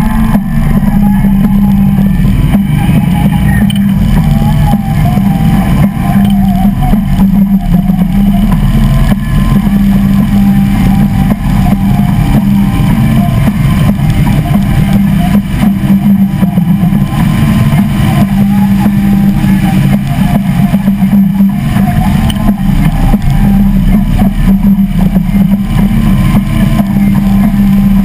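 Harley-Davidson V-twin motorcycle engines running under way, heard from on board: a loud, steady low pulsing engine note.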